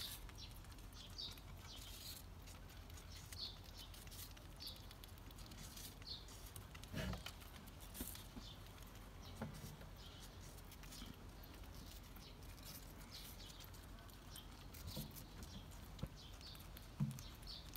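Eurasian red squirrel gnawing a piece of apple: faint, quick crunching clicks, with a soft knock twice. Birds chirp in the background.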